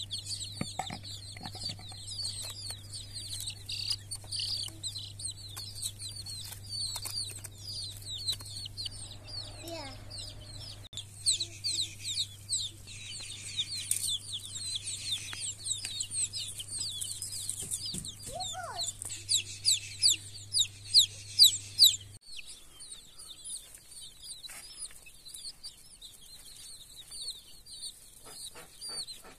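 A group of young chicks peeping without pause: a dense run of short, high, falling peeps that grow louder for a few seconds about two-thirds of the way through.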